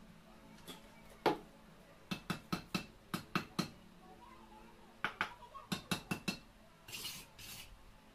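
Light, quick taps on concrete blocks, settling them into fresh mortar: a single knock, then two runs of rapid taps of about five a second, and a short scrape near the end.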